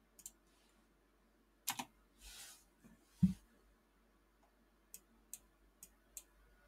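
Faint, scattered computer mouse clicks, with a run of four quick clicks near the end. A short soft hiss a little after two seconds in and a dull knock just after three seconds in.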